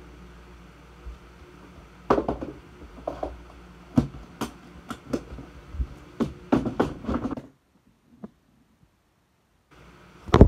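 Handling noise from a phone: a string of irregular knocks and bumps as it is moved and set down on a bed, then a couple of seconds of almost nothing, and a loud bump near the end as it is picked up again.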